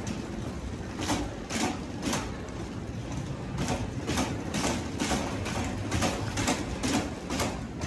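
Metal wire shopping trolley being pushed across a hard store floor, its wheels rumbling steadily and the frame rattling with a clack about twice a second.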